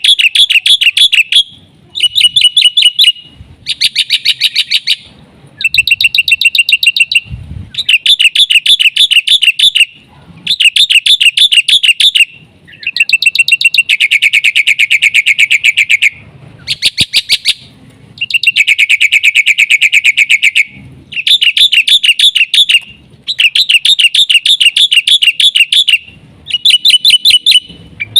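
Black-winged myna (jalak putih) singing loudly in fast runs of rapid, repeated high notes. Each run lasts a second or two, with short pauses between the runs.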